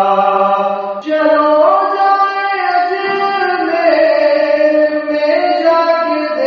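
Islamic devotional chanting, such as a naat or manqabat, sung without instruments: a voice holding long notes that step to a new pitch every second or two.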